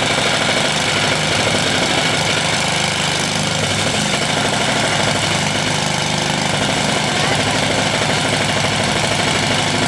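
Small engine-driven water pump running steadily with a rapid, even beat, drawing water up and pushing it out through a hose.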